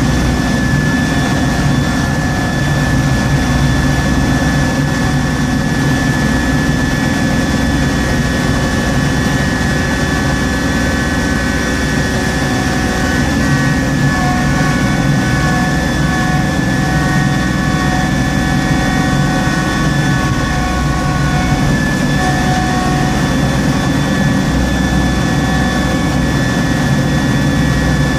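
Tractor engine and PTO-driven snowblower running steadily under load while throwing snow, heard from inside the cab: a constant low engine drone with a steady high whine over it.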